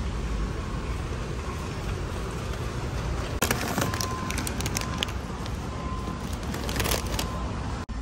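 Warehouse store background noise, a steady low rumble, with a run of sharp crackling clicks from about three and a half to seven seconds in.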